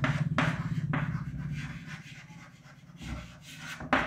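Handwriting: a run of short scratching strokes, thinning out in the second half, over a steady low hum.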